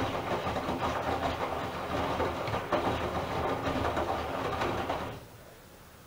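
Miele W1 Classic front-loading washing machine in the wash phase: the drum turning, with wet laundry tumbling and water sloshing inside it. The drum stops about five seconds in, and the sound falls away sharply.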